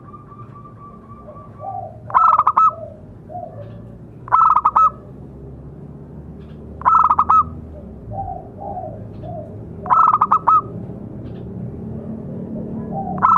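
Male zebra dove (perkutut) cooing: four loud bursts of rapid, rolling coos a few seconds apart, with softer, lower coos between them.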